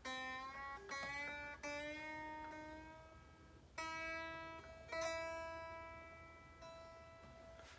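Squier Affinity Stratocaster strings plucked one at a time about five times, each note ringing out and fading, with the pitch creeping up slightly as the string is brought up to pitch at the tuner.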